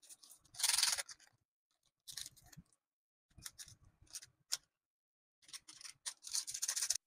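Small plastic seasoning sachet torn open by hand: a short rasping tear about half a second in, then scattered crinkles of the packet and a stretch of rustling near the end as it is squeezed out.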